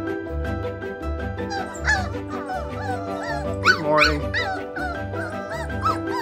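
A litter of young Australian Shepherd puppies whimpering and yipping, many short rising-and-falling cries starting about a second and a half in, loudest near the middle. Background music plays throughout.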